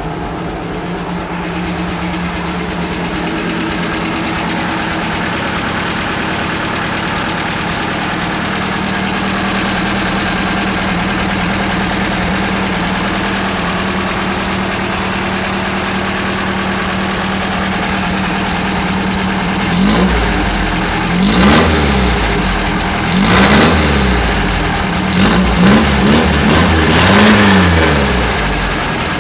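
Volkswagen Beetle's air-cooled flat-four engine idling steadily, freshly started, then revved several times in short blips over the last ten seconds, each rising and falling back to idle.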